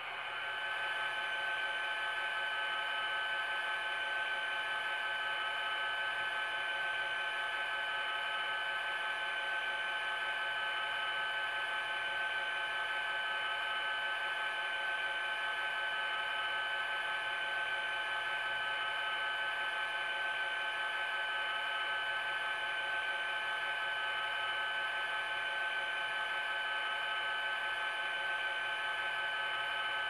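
ESU LokSound decoder in an N scale Kato SDP40F model locomotive, playing a steady diesel-engine idle through the model's small speaker while the locomotive stands still.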